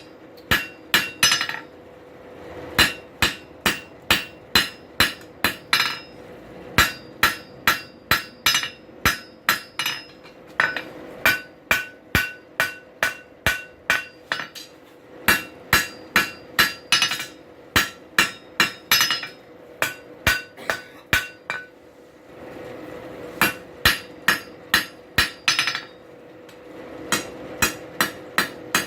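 Blacksmith's hand hammer striking hot steel on an anvil, drawing out the nail shank of a drive hook: sharp ringing blows about two a second, in runs broken by short pauses.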